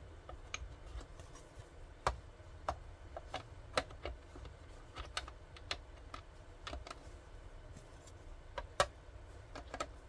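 The ZTE MC801A1 router's plastic casing being handled and its vented top cap pressed back into place: irregular light plastic clicks and knocks, roughly one or two a second, a few louder than the rest.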